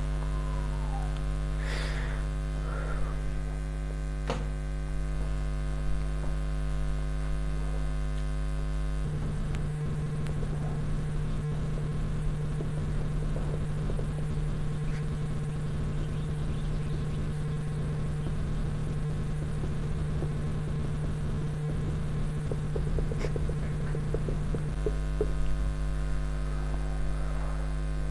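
Steady electrical mains hum. The hum turns rougher and noisier from about nine seconds in until near the end, with faint squeaks and ticks of a marker writing on a whiteboard.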